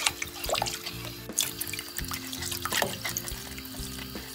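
Tap water running and splashing into a colander while hands rub a cucumber, then a myoga bud, clean under the stream. Light background music with held notes plays throughout.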